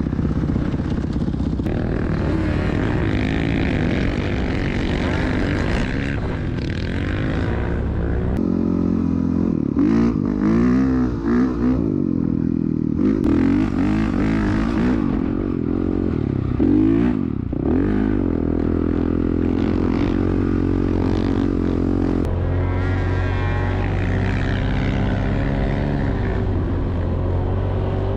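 Dirt bike engine running under load, its revs rising and falling repeatedly through the middle as the rider works the throttle and gears, then holding steadier near the end, over a rush of wind noise.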